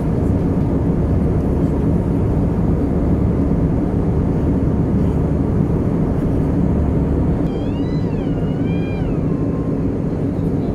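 Steady drone of cabin noise inside an Airbus A319 in flight, from its engines and the airflow past the fuselage. About seven and a half seconds in, a high, wavering cry rises and falls for about two seconds over the drone.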